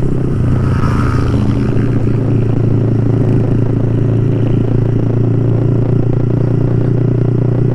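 A Yamaha R15 v3's single-cylinder 155 cc engine, fitted with an aftermarket open pipe, running steadily at a constant pitch.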